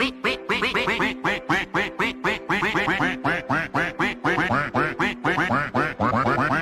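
Fast, rhythmic run of quacking calls, several a second, set over music with a steady pitched backing.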